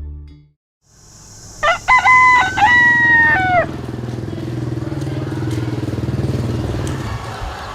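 A rooster crowing once: a few short notes running into a long held note that drops away at the end, over a low steady hum.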